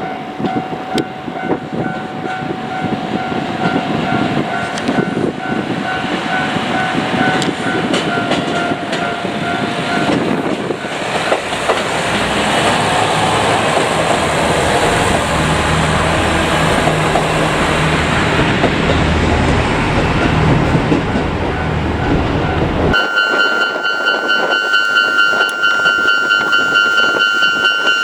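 A level-crossing bell rings in quick repeated dings while a train runs over the crossing with a rumble and clatter of wheels. Near the end the sound changes abruptly to the crossing bell alone, ringing clear and loud.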